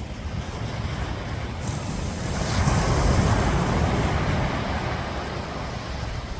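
Ocean surf on a beach: a wave builds about two seconds in, breaks into a loud wash and fades over the next few seconds. Wind rumbles on the microphone throughout.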